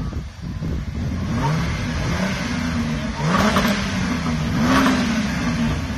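A parked sports car's engine revved in a series of quick blips, the pitch rising and falling several times, with two louder revs in the second half.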